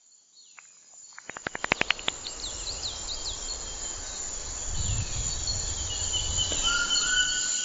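Nature ambience of insects and birds. A quick run of clicks comes about a second in, followed by short high chirps over a steady high insect trill, and a low hum joins about halfway through.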